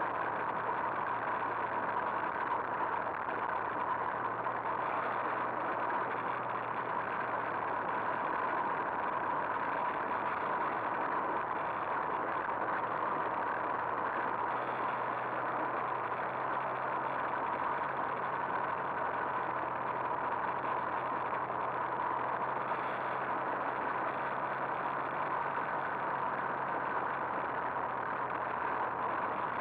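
Two-stroke moped engine running at a steady cruising speed, a constant drone that does not change in pitch, recorded from a camera on the moving bike.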